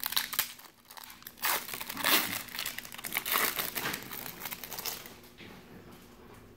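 Foil wrapper of a 1993-94 Fleer Ultra basketball card pack being torn open and crinkled by hand, loudest about two and three seconds in and dying down after about five seconds.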